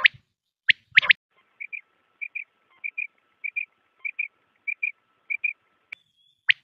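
Quail calling: loud, sharp call notes in the first second or so, then a run of soft paired notes, about seven pairs at roughly 0.6 s intervals, over a faint steady hum. A brief high tone sounds near the end.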